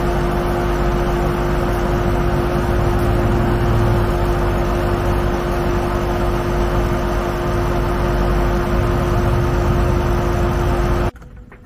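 Portable electric air compressor running steadily, a constant motor hum with hiss, as it airs up a tire. It cuts off suddenly near the end.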